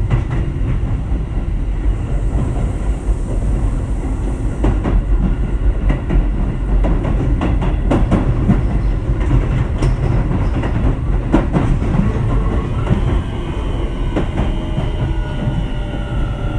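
Keio 7000 series electric train running: a steady rumble of wheels on rail, with sharp clicks over rail joints. In the last few seconds the Hitachi IGBT inverter's motor whine comes in as several tones falling slowly in pitch, as the train slows under regenerative braking.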